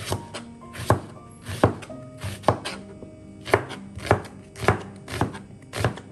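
Kitchen knife slicing an onion on a plastic cutting board: about ten even, unhurried strokes, each ending in a sharp knock of the blade on the board.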